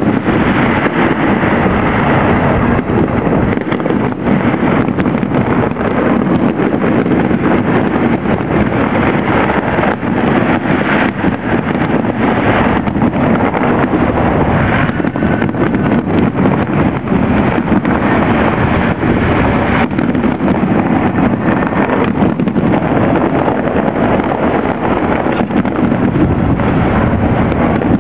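Fireworks display going off, with scattered bursts heard under a steady, loud rushing noise.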